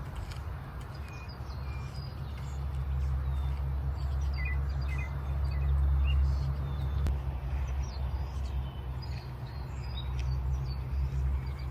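Small birds chirping in short scattered calls over a steady low rumble that grows louder toward the middle.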